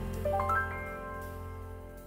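Background music: a quick run of rising notes about half a second in, then held notes fading away.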